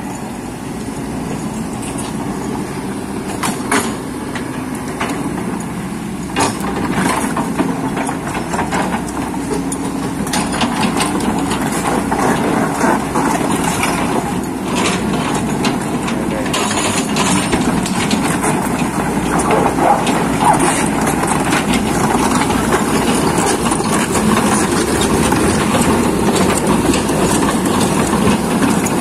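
Kobelco excavator's diesel engine running steadily and growing a little louder later on, with scattered sharp knocks and clatter from the machine working through rocky ground.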